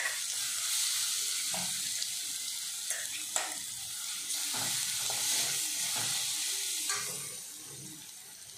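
Crushed coconut mixture sizzling as it goes into hot oil in a wide Kerala cheenachatti pan, with a steel spoon scraping and clicking against the mixer jar and the pan as it is stirred in. The sizzle dies down near the end.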